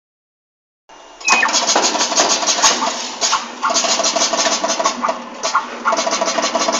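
A rubber keychain-making machine starting up about a second in, then running loudly with a rapid mechanical rattle that eases briefly about every two seconds, like a repeating work cycle.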